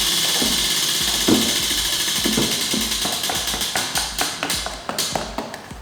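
A spinning prize wheel's pointer ticking against its pegs, the ticks coming slower and fainter as the wheel winds down to a stop, over background music.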